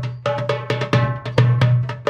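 Drums played in a fast, steady rhythm, several ringing strikes a second.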